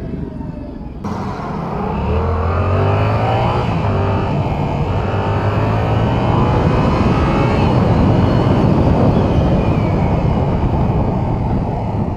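2022 Yamaha R7's 689 cc parallel-twin engine pulling up through the revs as the bike accelerates, under a rush of wind noise that swells about a second in.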